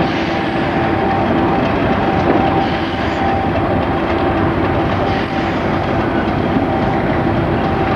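Class 50 diesel locomotive's English Electric V16 engine running steadily as the locomotive moves along the track, with a steady whine held over the engine note.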